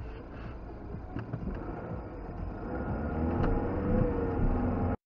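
Car engine and road noise heard from inside the cabin, growing louder as the car accelerates through the second half, with a faint engine note rising and falling. The sound cuts off abruptly just before the end.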